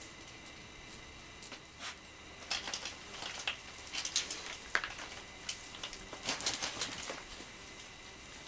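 Hands working loose potting compost around young plants in plastic pots: a run of short rustles and scratchy crackles as soil is scooped, dropped in and firmed, busiest in the middle of the stretch.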